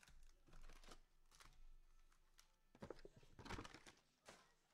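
Faint rustling and scraping of a cardboard Panini Mosaic trading-card box being opened and its cellophane-wrapped packs handled, in a few soft spells about a second in and again around three to four seconds in.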